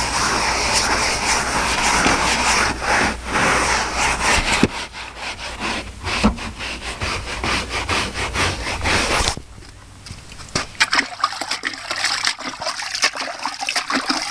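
Hand scrub brush scrubbing truck floor carpet in quick back-and-forth strokes, stopping suddenly about nine seconds in. Then scattered splashing as the brush is dunked and swished in a bucket of rinse water.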